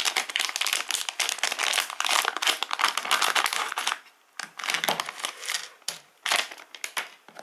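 Crinkling of a metallized foil pouch being handled and pulled open, dense and continuous for about four seconds. After that come a few separate light knocks and rustles as parts are set down on a tile floor.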